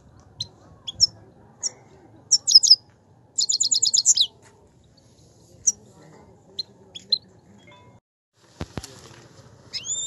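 Caged Himalayan (grey-crowned) goldfinch singing: two quick bursts of rapid, high twittering notes in the first half, with single sharp chirps scattered between and after. A brief knock sounds near the end.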